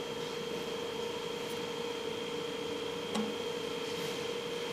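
Steady machine hum with a light noise haze, and one short light click about three seconds in as the copper rods are handled in the cold-welding die.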